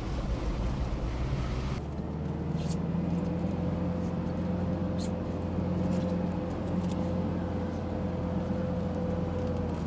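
Car driving on a rough snowy track: a rushing noise for the first two seconds gives way to a steady engine drone with a held whine, with a few sharp knocks and rattles.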